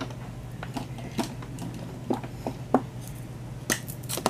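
Light clicks and taps of hard makeup items being picked up and handled, about eight scattered over four seconds with the sharpest near the end, over a steady low hum.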